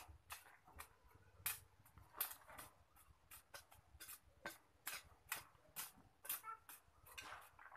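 Caged sunbird (kolibri ninja) giving short, sharp clicking chip notes, two or three a second at irregular intervals.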